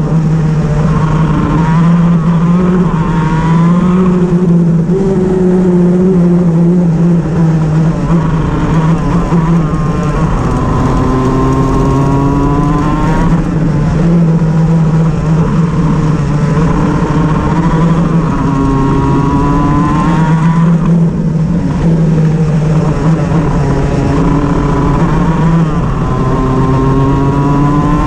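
Shifter kart's two-stroke engine running, its pitch rising four times as it accelerates, about every eight seconds, over a steady low hum. The engine is the one the title calls misfiring.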